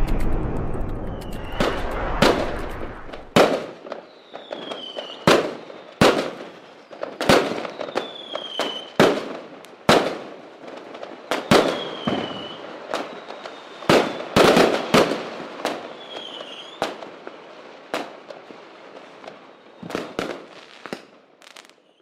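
Fireworks going off: a deep boom at the start, then sharp bangs about once a second, with several short whistles that drop in pitch.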